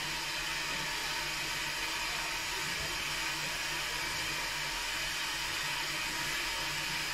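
Steady hiss of steam from a steam locomotive standing still.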